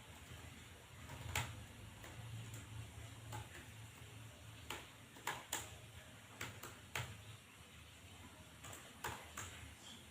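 Computer keyboard keys being typed: a dozen or so separate, unevenly spaced key clicks, over a low steady hum.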